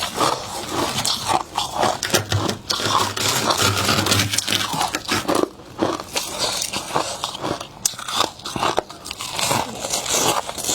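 Close-miked biting and chewing of fluffy freezer frost: dense, irregular crunching, several crunches a second.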